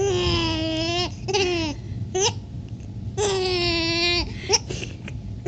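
Baby squealing with laughter from being tickled: three long drawn-out squeals and a short one, then near the end a couple of short sharp catches, the hiccups that the laughing brings on.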